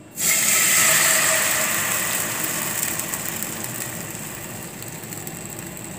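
Milk sizzling in a hot nonstick pan that still holds oil from frying bread. It starts suddenly, is loudest at first, then slowly dies down to a steady hiss.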